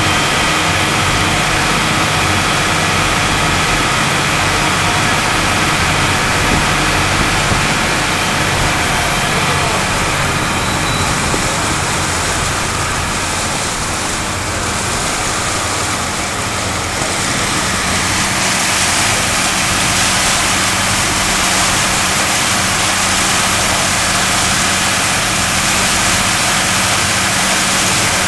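Small river ferry's diesel towboat engine running steadily under way, a constant low drone, with the rushing wash of the propeller wake.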